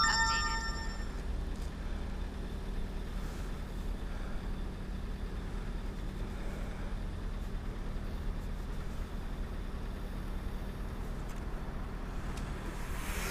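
Steady low background rumble and hum, with a brief chime of several steady tones in the first second.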